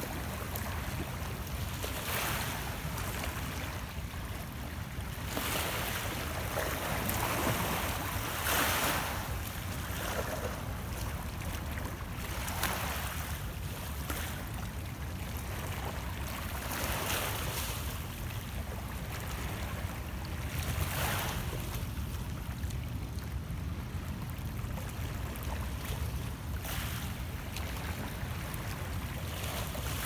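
Small Lake Ontario waves lapping and splashing against shoreline rocks, a soft wash every few seconds, over a steady low rumble.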